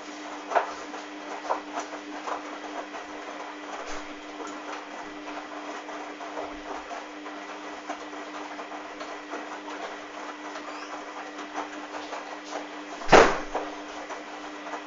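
Hoover DYN 8144 D washing machine running: a steady motor hum with constant clicking and rattling from the drum, and one loud knock about 13 seconds in.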